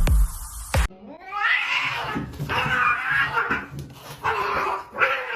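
Domestic cats yowling: a run of long, wavering, drawn-out calls, the threat yowl of a cat standoff. A burst of loud music cuts off about a second in.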